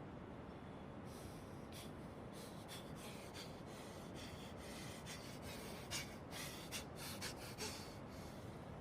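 Hands rubbing and patting during a barber's massage: a run of short brushing strokes over a steady hiss, busiest about six to eight seconds in.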